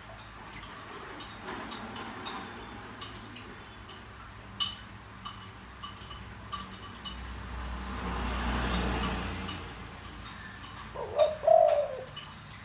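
Spotted dove giving a deep cooing phrase of a few notes near the end, over faint scattered clicks. A soft rush of noise swells and fades in the middle.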